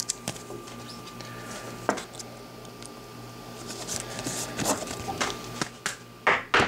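Handling of a trading card and a clear plastic card case on a tabletop: scattered light clicks and taps, with a quick cluster near the end as the case is set down.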